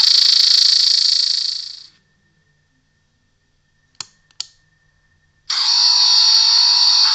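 Recorded Dalek gun ray sound effects played through a small amplifier and speaker: one effect fades out about two seconds in, two sharp clicks of the trigger switch follow, and the next Dalek gun effect starts abruptly about a second and a half later.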